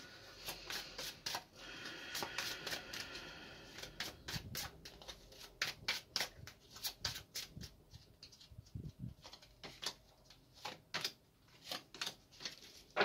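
Egyptian tarot cards being shuffled and handled: a fast, irregular run of small crisp clicks and snaps, with a louder snap at the very end.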